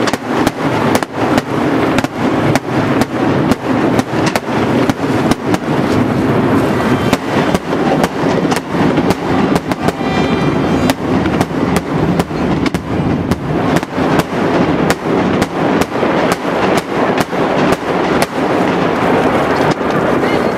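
Daytime fireworks display: aerial shells bursting overhead in a rapid, continuous barrage of bangs, about two to three a second, over a steady rumble of overlapping reports.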